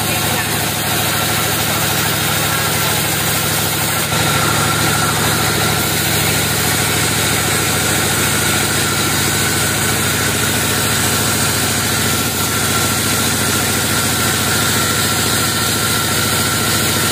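Log bandsaw mill running steadily as a log on the carriage is fed through the vertical band blade, which saws a slab off along its length; a constant machine hum, a little louder from about four seconds in.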